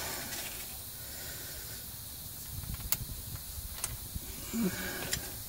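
A steady background hiss with three faint, sharp metallic clicks in the second half, as drive shaft bolts are handled and threaded by hand into the front differential's pinion flange.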